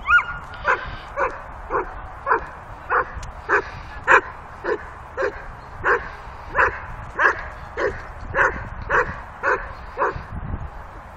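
A dog barking over and over in a steady, even rhythm, a little under two barks a second, without a break.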